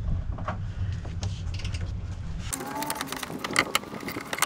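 A half-inch drive ratchet on a 13 mm bolt, clicking and rattling as it is worked back and forth to break the bolt loose. The first two and a half seconds hold a steady low hum with a few ticks, then a dense run of sharp clicks.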